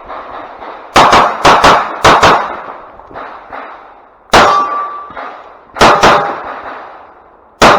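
Glock 45 9mm pistol fired in a stage string: about nine shots, a fast run of five starting about a second in, then single shots and a quick pair. Hits on steel targets ring out with a short metallic clang after some of the shots.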